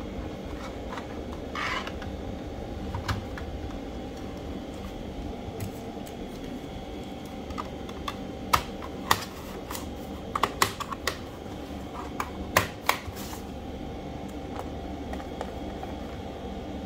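Sharp plastic clicks and taps as the black drive-bay cover is fitted back onto a Toshiba Satellite C650 laptop's plastic base, a cluster of a dozen or so clicks about halfway through. A short rubbing sound comes about two seconds in as the SSD is pushed into its drive-bay connector, all over a steady low background hum.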